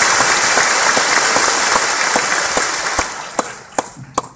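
Large audience applauding, dense and steady at first, then thinning to a few scattered claps and dying away near the end.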